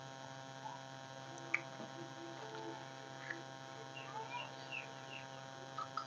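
Steady electrical mains hum at a low level, with a few faint short clicks and chirps scattered through it.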